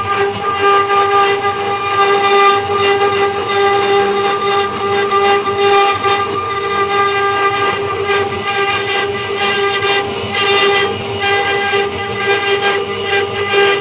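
CNC router spindle whining steadily at high speed while a small carving bit cuts into a wooden block, with a rough cutting noise from the wood that comes and goes.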